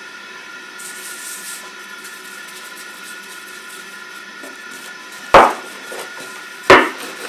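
Two sharp knocks on the table just over a second apart, while lavash dough is worked on a floured table and rolled out with a wooden rolling pin.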